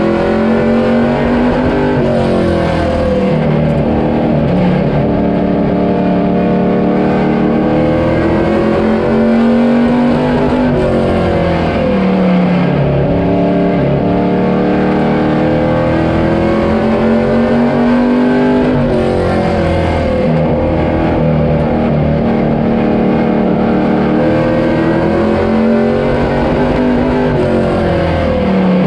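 A loud engine running continuously under load. Its pitch climbs over several seconds and then drops, again and again, as the revs rise and fall.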